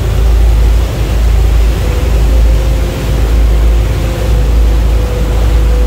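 Passenger taxi boat's engine droning steadily while under way, heard inside the cabin, a deep rumble with a faint steady whine coming in about two seconds in.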